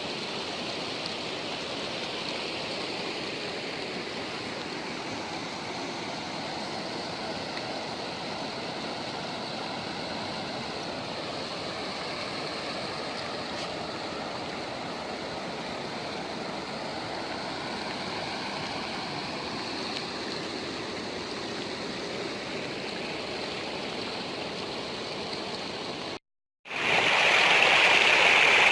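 Running water, a steady rushing like a stream or small waterfall. About 26 seconds in it cuts out for a moment and returns louder and brighter.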